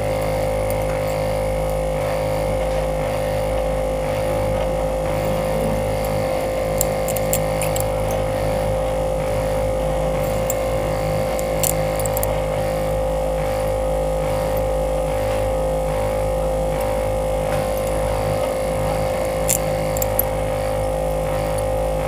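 Steady, unchanging drone of a mobile-screen LCD separator machine running. A few faint, brief clicks occur as a thin cutting wire is worked under the broken glass to separate it from the display.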